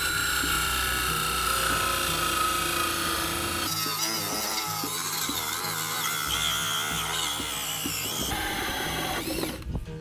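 Cordless drill spinning a hole saw, sized for a 2-inch bulkhead fitting, as it cuts out the light hole in the top of a rippled urn fountain. The sound shifts about a third of the way in and again near the end.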